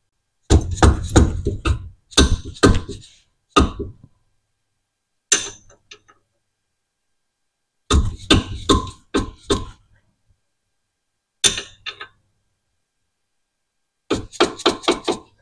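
Cordless impact wrench hammering on the 17 mm front caliper bracket bolts of a 2009 Hyundai Santa Fe, in several short bursts of rapid rattling impacts with pauses between, as the bolts are loosened and spun out.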